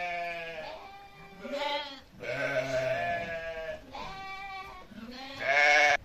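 Sheep bleating: about five wavering bleats one after another at differing pitches, the last one, near the end, the loudest.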